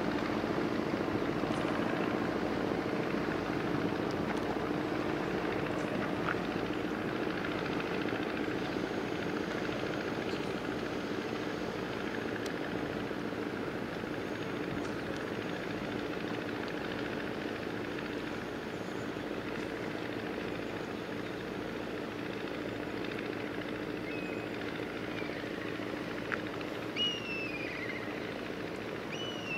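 The cruise ship Guntû's engines running as it sails past: a steady low hum with a few level tones that slowly fades as the ship moves away.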